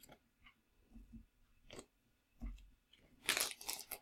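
Small clear zip-lock plastic bag being handled: a few faint light rustles and ticks at first, then a louder stretch of plastic crinkling in the last second.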